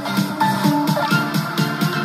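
Electronic dance music with a steady beat of about four pulses a second, played through a TPA3116D2 2.1 class-D amplifier board driving a pair of bookshelf speakers and a subwoofer.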